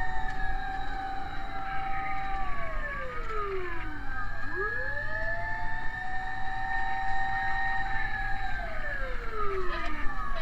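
Several fire truck sirens wailing together, each rising, holding its pitch and falling in slow cycles of about four to five seconds, over a low rumble.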